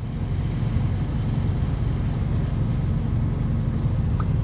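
Motor vehicle engine running steadily with a low, even rumble.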